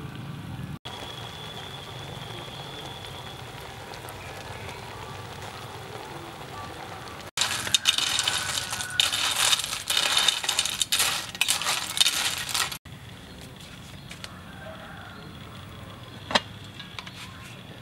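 A metal spoon stirring a pot full of snails, the shells clattering and clinking against each other and the aluminium pot for about five seconds in the middle. A single sharp knock near the end.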